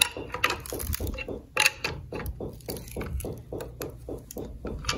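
A wrench clicking steadily, about four clicks a second, as it turns the centre bolt of a clutch spring compressor on a Norton Commando clutch. The compressor is being backed off so the diaphragm spring clamps the clutch.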